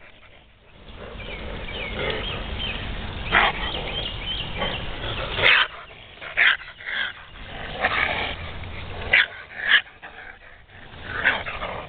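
A young raccoon held in an animal-control catch pole gives several short, harsh distress cries, growling and yelping as it struggles.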